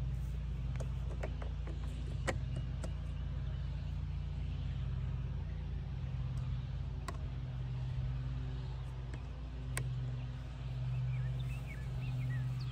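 A steady low mechanical drone, swelling now and then, with a few sharp clicks and taps as metal solar-rack parts are handled.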